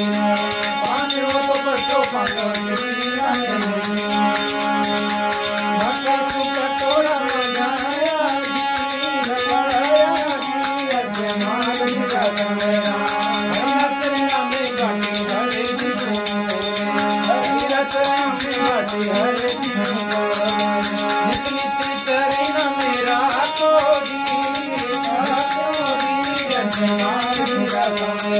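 Harmonium playing a Rajasthani devotional bhajan melody over a steady drone, with a man singing and a pair of small hand cymbals (manjira) keeping a fast, even beat.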